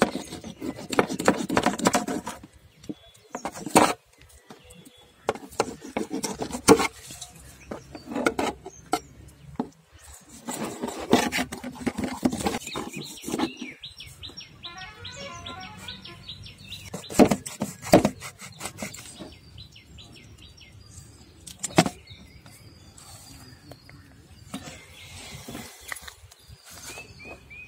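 A knife scraping the scales off a whole murrel (snakehead) fish on a metal plate, in short irregular scratchy strokes with pauses between.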